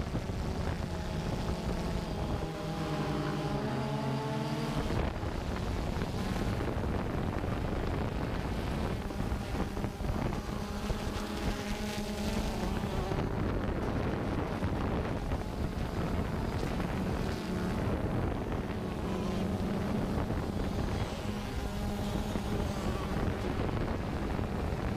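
Quadcopter drone's propellers and motors humming steadily, their pitch shifting now and then as the drone manoeuvres, with wind noise on the microphone.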